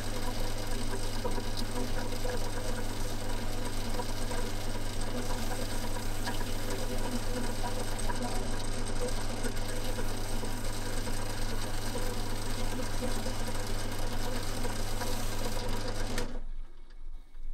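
Small belt-driven lathe running steadily at a low pulley speed with the chisel handle spinning in its chuck, a steady motor hum with a strong low drone. It is switched off about 16 seconds in and the sound stops sharply.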